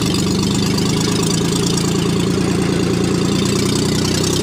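Motorcycle engine running steadily at low speed, heard from the rider's seat.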